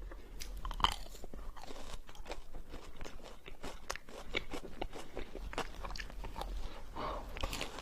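Close-miked biting and chewing of ice cream, with frequent crisp crunching crackles and a sharper bite just under a second in.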